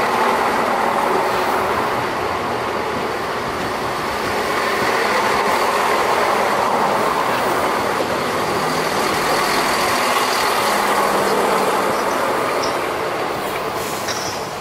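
A Chiltern Railways diesel multiple unit running past close by, its underfloor diesel engines and wheels on the rails making a steady loud noise that starts to fade near the end as the last car moves away.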